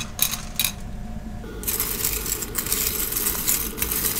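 Cockle shells clinking and rattling against each other and the steel pot as a hand stirs them round in one direction in the blanching water: a few separate clicks at first, then a dense, continuous rattle from about a second and a half in.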